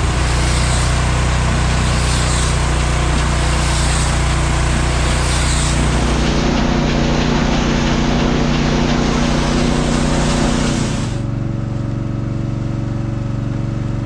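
Engine and machinery of an inline bale wrapper running steadily while silage bales are wrapped into a plastic tube. The sound shifts about six seconds in and drops to a quieter, steady engine hum about eleven seconds in.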